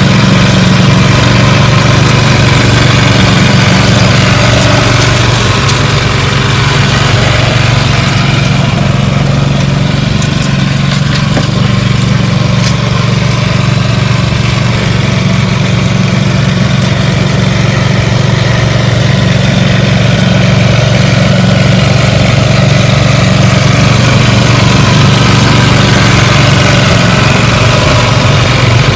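Small petrol engine of a Hako Sweepmaster P800 walk-behind sweeper running steadily with an even, low drone as the machine sweeps.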